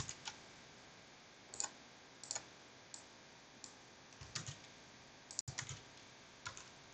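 Scattered single clicks of computer keys and a mouse, roughly one a second, starting about a second and a half in, over faint steady hiss.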